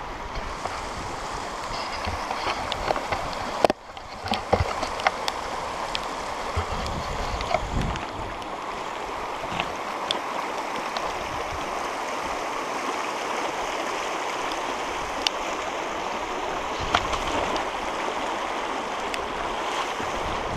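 Rushing water of a stream or waterfall, a steady even rush, with scattered small clicks and knocks on top.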